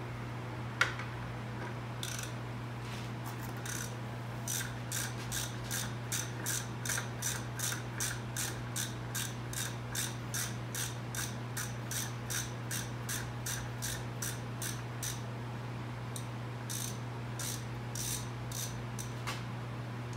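Hand ratchet clicking in an even run of about three clicks a second, stopping for a moment and picking up again near the end, as the rear brake caliper's Allen bolts are backed out. A steady low hum lies underneath.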